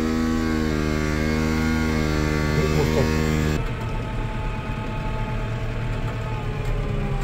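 Case IH tractor's diesel engine running, heard from inside the cab: a steady drone at constant revs, which changes abruptly after about three and a half seconds to a rougher, lower rumble as the tractor drives on.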